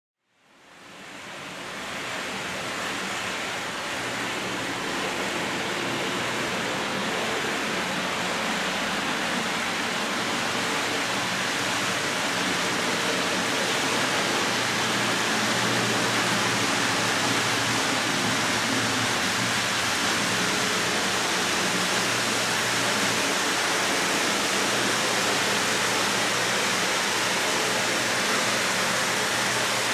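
H0-scale model train running along the track, its two SBB Re 6/6 model locomotives pulling a long train of lorry-carrying wagons. A steady rushing noise of wheels on rails with a low motor hum, fading in over the first couple of seconds.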